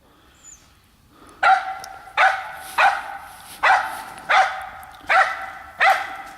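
A squirrel dog barking treed, seven sharp barks about one every three-quarters of a second, starting a second and a half in. It is baying at a tree where a squirrel has holed up in a knot hole.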